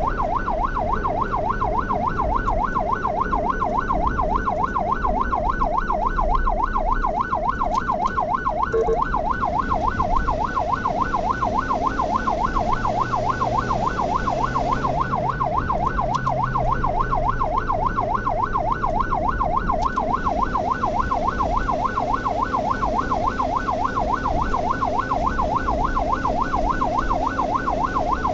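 Ambulance siren running on a fast yelp, its pitch sweeping up and down several times a second, over low engine and road rumble.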